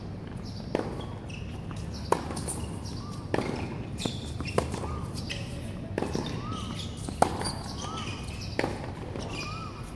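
Tennis rally on a hard court: ball struck by rackets and bouncing, a sharp knock about every second and a half, with short squeaks between the shots.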